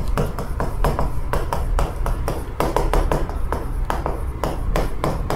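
Chalk writing on a chalkboard: an irregular run of short taps and clicks as each stroke of handwritten Korean letters hits the board.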